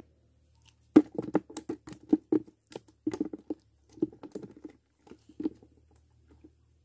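Hand handling close to the microphone: a quick, irregular run of sharp taps and knocks starting about a second in and fading out after about four and a half seconds.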